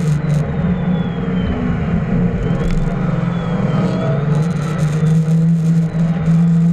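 Car engine running hard at high revs through a drift, its note fairly steady and strongest in the last couple of seconds.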